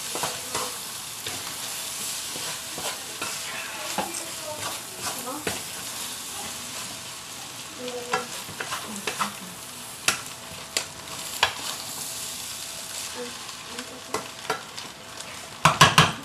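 Fried rice with egg, soy sauce and oyster sauce sizzling in a hot oiled pan as it is stirred and turned over with a utensil. There are scattered clicks of the utensil against the pan and a quick cluster of louder knocks near the end.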